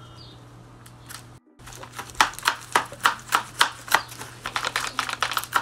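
Paper dragon puppet's folded-paper jaws snapping shut over and over: a quick run of dry papery clacks, about three or four a second, starting about two seconds in after a moment of quiet room tone.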